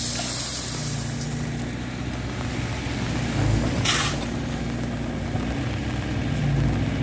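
Engines of a small hydraulic grab excavator and a three-wheeled công nông truck running steadily while the grab loads crushed stone into the truck bed. A rush of stone pours from the grab at the start, and a short sharp noise comes about four seconds in.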